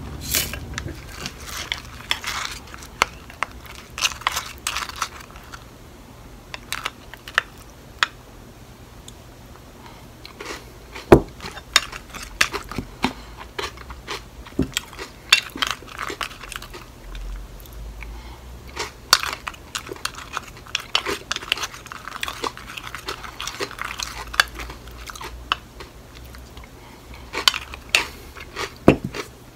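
Yogurt and granola being eaten: a wooden spoon clicks and scrapes against a glass bowl, with crunchy chewing of the granola.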